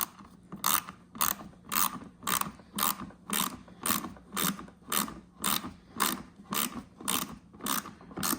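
A small compact ratchet driving a screw home into a plastic light mount, its pawl clicking in a short burst on each back-swing, about two strokes a second.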